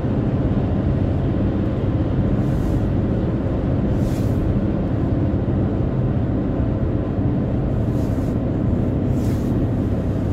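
Steady road and engine noise inside a moving car's cabin, mostly a low, even rumble. A few faint, short hisses sit on top of it.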